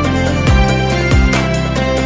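Background music with a steady thumping bass beat and sustained synth notes.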